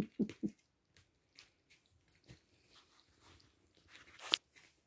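Kitten lapping water from a bowl: a few quick laps at about four a second at the start, then fainter irregular ticks and one sharper click near the end.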